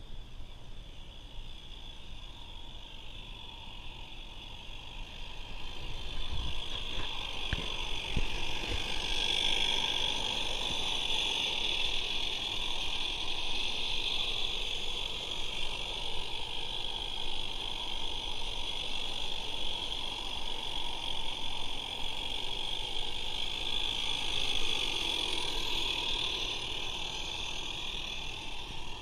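Regner live steam model locomotives running on a garden railway: a steady hiss of steam with the rattle of wheels on the track, growing louder about six seconds in. A few low knocks sound around then.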